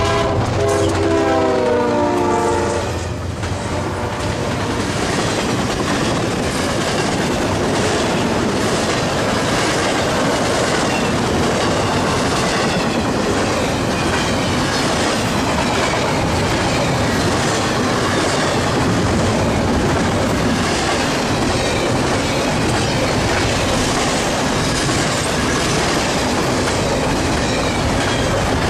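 CSX freight locomotive's horn sounding as it passes, its chord dropping in pitch and cutting off about three seconds in. Then the steady rumble and rhythmic clickety-clack of a double-stack container train's well cars rolling by on the rails.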